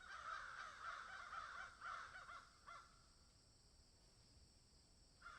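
Faint, harsh, raspy bird calls: a rapid run of short notes lasting about three seconds, then quiet, then one brief call at the very end.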